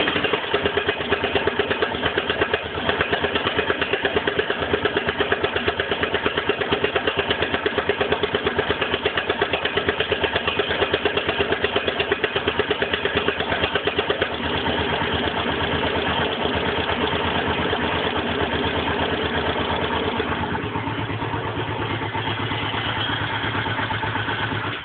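Suzuki DR750 single-cylinder engine idling with a rapid, even knock from the top end. The owner hears it when the engine is cold and finds it fades as the engine warms, and suspects piston slap. The knocking beat softens about halfway through, and the engine stops right at the end.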